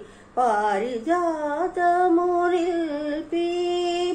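A woman singing a Telugu devotional song to the goddess, solo voice with no accompaniment, moving through ornamented phrases and holding long notes after a short breath at the start.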